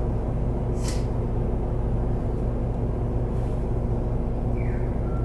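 Interior running sound of an Isuzu Erga Hybrid route bus: a steady low drivetrain drone, with a short hiss of air about a second in and a brief falling tone near the end.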